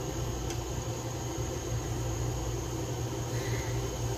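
A pan of vermicelli cooking in water on the stove: a steady low rumble with a hiss, and a faint tap about half a second in.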